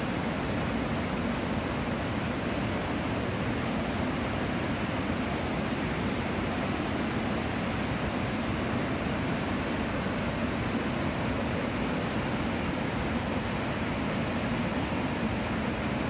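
Steady rush of Iguazu Falls, with massive volumes of water pouring over the cliffs and crashing below, unbroken throughout.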